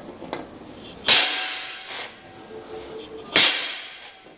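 Hammer blows on a center punch against a metal plate: two sharp strikes about two seconds apart, each ringing and dying away, with a couple of light taps between them.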